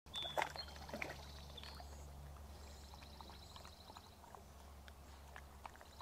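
Faint splashing and trickling of a dog wading into a shallow river, with a few small splashes in the first couple of seconds over a low steady hum.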